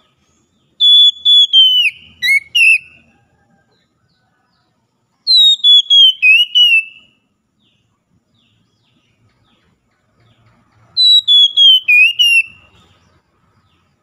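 Oriental magpie-robin (kacer) singing loud whistled phrases three times, several seconds apart. Each phrase slides down from a high, clear note and ends in a quick warble.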